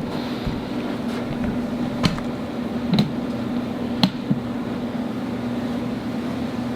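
Steady room ventilation hum, with a few light clicks and knocks about two, three and four seconds in.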